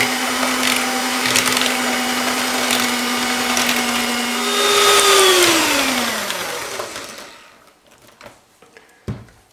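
Electric hand mixer beating egg yolks and sugar in a plastic bowl: the motor runs at a steady pitch, with the beaters ticking against the bowl. A little under five seconds in it jumps to a higher, louder pitch, then is switched off and winds down, its pitch falling away over about two seconds.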